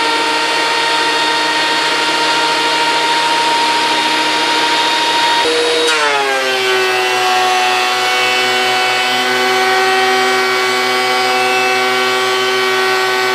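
Benchtop thickness planer running loud and steady. About six seconds in, its motor pitch drops and stays lower as a board feeds into the cutterhead and the machine comes under load.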